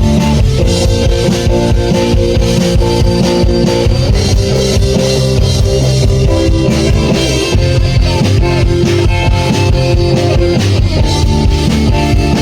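A rock band playing live, electric guitar chords over a drum kit, which stops abruptly at the very end.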